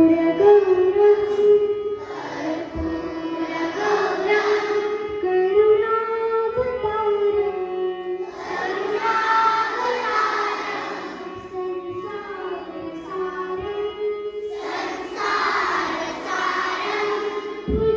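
Music with voices singing a melody over a steady held drone note, with instrumental accompaniment; it swells louder three times.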